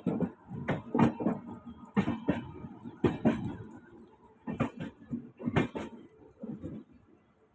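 A series of irregular sharp knocks and clatters, several in a row, thinning out toward the end.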